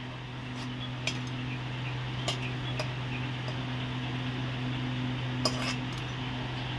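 A metal slotted skimmer clinks lightly against a metal kadai about four times as fried spinach pakoras are lifted out of the oil, over a steady low hum.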